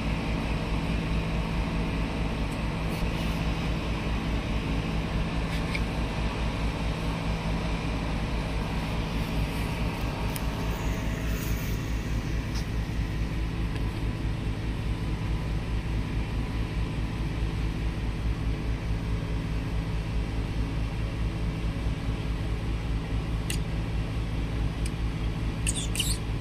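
Steady low mechanical hum and rumble, with a few faint short clicks near the end.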